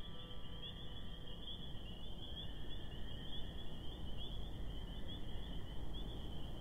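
Night-time outdoor ambience: insects chirring in a steady high-pitched band over a low rumble, which grows slightly louder.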